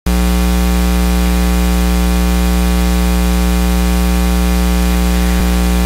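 Loud, steady electrical buzz with hiss: a mains hum and its many overtones, held constant in the sound-system or recording feed.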